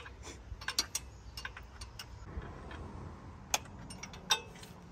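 Irregular sharp metallic clicks and clinks of a hand wrench being worked a little at a time on a hard-to-reach thermostat bolt, with a few louder ones about a second in and again near the end.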